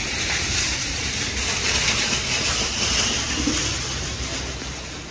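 Rushing air: a steady hiss over a low rumble that swells through the middle and fades near the end.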